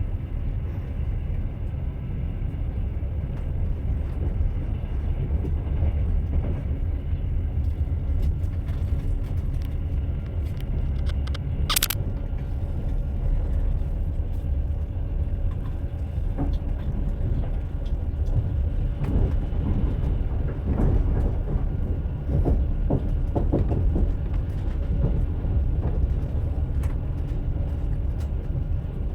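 Train running on rails with a steady low rumble. About twenty seconds in comes a run of wheel clacks over rail joints, and near the middle there is one brief sharp high click.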